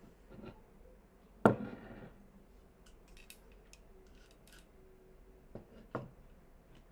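A few sharp clicks and scraping handling noises close to the microphone, the loudest about one and a half seconds in, with fainter ticks after.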